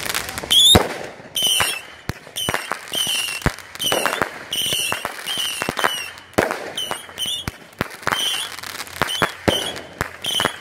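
Two fireworks cakes firing at once, the Firehawk Maximum Payload 200-gram cake and a Flag Missile cake: a rapid string of launch thumps and pops, about two a second, many with a short whistle.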